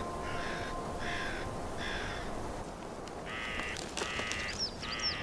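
Crows cawing: a steady series of short harsh caws, about one every three-quarters of a second, then after a short pause three longer caws. A few high, thin chirps come near the end.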